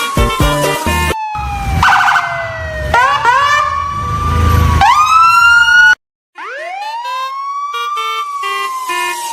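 A siren wailing, its pitch sweeping up and holding then falling slowly, over and over, with a brief cutout about six seconds in. Background music with a beat plays under the first second or so.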